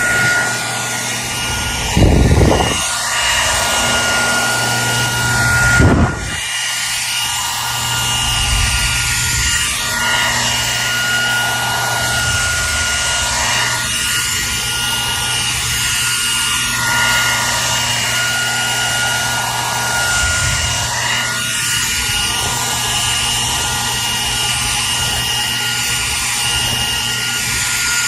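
Hair dryer running steadily: an even rush of air with a constant high whine over a low motor hum. Two brief low thuds come about two and six seconds in.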